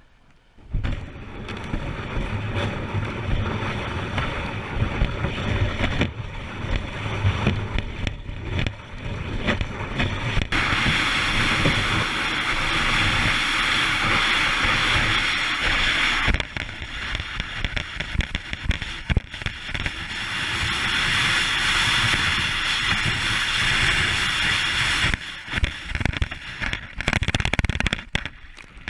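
Rough rumbling wind-and-water noise on a kayak-mounted microphone, changing abruptly several times. In the middle comes a stretch of steady loud hissing as the plastic kayak hull slides over snow and ice.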